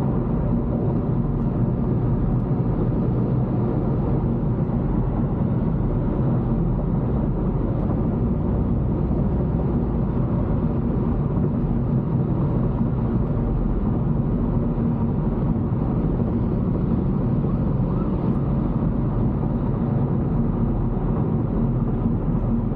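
Car driving at steady speed, heard from inside the cabin: a constant low engine and road rumble with a steady hum.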